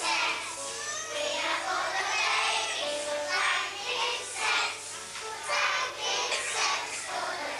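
Children singing together to music, with a faint steady electrical hum underneath.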